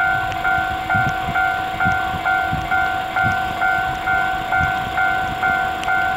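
Japanese level-crossing warning alarm ringing its repeated electronic two-tone "kan-kan", a little over two strokes a second, warning of an approaching train.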